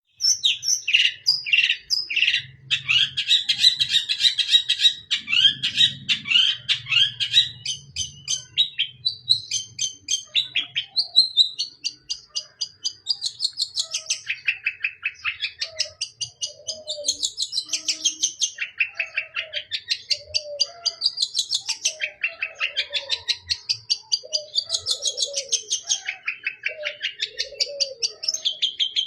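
Long-tailed shrike (cendet) singing continuously in full song: a rapid run of chattering notes in varied phrases that rise and fall, packed with mimicked calls of other birds.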